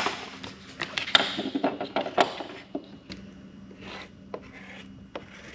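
Stiff cardboard being folded and handled: a quick flurry of crackles and knocks for about the first two and a half seconds, then only a few faint taps.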